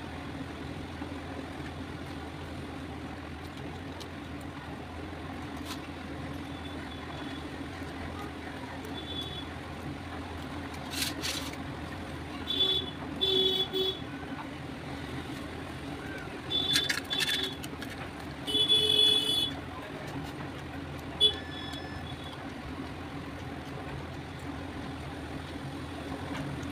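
Steady low traffic rumble, with several short vehicle horn toots in the middle.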